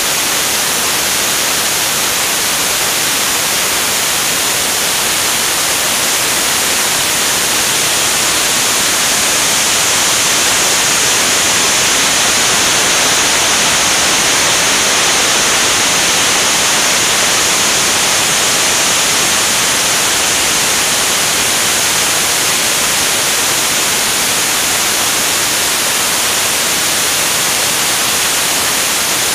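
Steady rush of airflow buffeting a camera mounted on an aircraft's wing in flight: a loud, even hiss, strongest in the high range.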